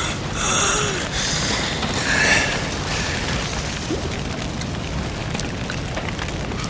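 A low, steady rumble of booming battle noise. A few ragged, gasping breaths from a dying wounded man sound over the first couple of seconds.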